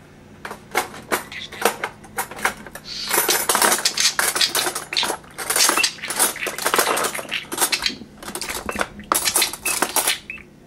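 Metal cutlery clinking and clattering as it is put into a kitchen drawer: scattered clinks at first, then a dense clatter from about three seconds in, with short pauses, stopping near the end.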